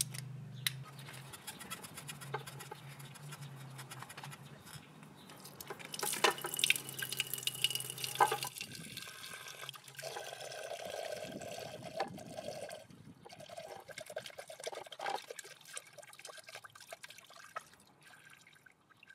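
Old coolant draining from the left cylinder drain hole of a BMW R1200GS Adventure's liquid-cooled boxer engine, a thin stream pouring and splashing into a container below. The flow tapers off near the end.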